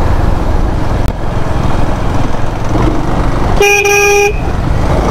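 Steady wind and road rumble of a motorcycle ride heard through a mic inside the helmet, with one short vehicle horn honk, under a second long, about three and a half seconds in.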